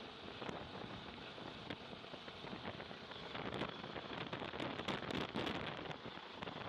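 Helicopter hovering low overhead, its rotor downwash buffeting the microphone as a rough rushing noise with irregular crackles that grow denser after about three seconds.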